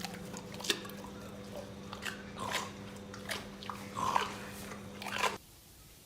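Irregular crunching chewing sounds over a steady low hum, both cutting off abruptly about five seconds in.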